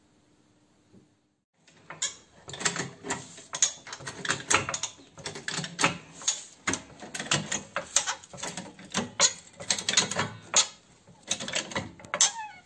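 Hand tools and metal parts clicking and clattering in quick, irregular succession during work on a car's front brakes, with a short rising squeak near the end.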